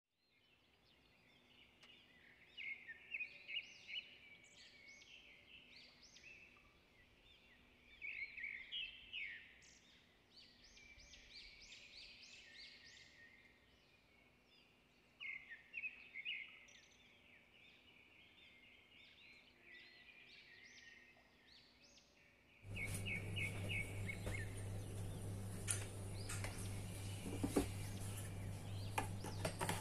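Birdsong: many short chirps and whistles from small birds. About 23 s in it switches suddenly to a steady hiss and crackle over a low hum, as coconut oil heats in a clay pot.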